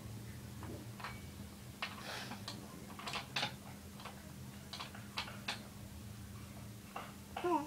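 Irregular light taps and clicks of a baby's hands knocking against metal window-grille bars, over a steady low hum. A short baby vocalization comes near the end.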